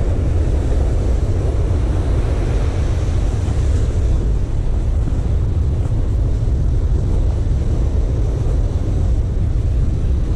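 Wind rumbling steadily on the microphone over the wash of surf breaking along the beach.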